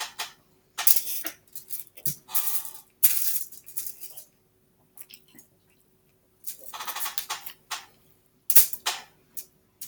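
Eating sounds: spoon and fork clicking and scraping against a plate in short irregular bursts with pauses between them, over a faint steady hum.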